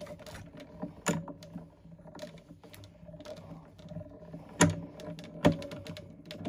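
Hand-cranked Stampin' Cut & Emboss die-cutting machine rolling a die-and-plate sandwich through its rollers: a steady mechanical whir with small clicks and two sharp clunks in the second half.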